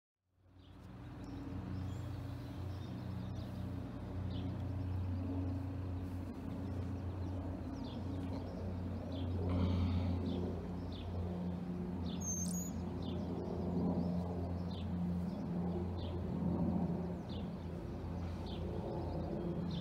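Aircraft flying overhead, its engines giving a steady low drone that swells a little about halfway through and again near the end. Birds chirp over it, short high chirps about once a second.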